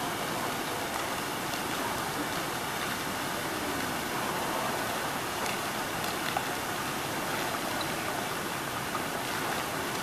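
Airport terminal fountain running: water jets arcing and splashing into the basin, a steady rush of falling water.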